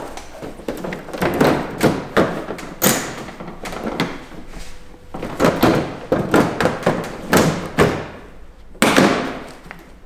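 Front cover of a standing air conditioner being pressed and knocked into place as it is seated on the unit: a series of knocks, clicks and thuds, the loudest about nine seconds in.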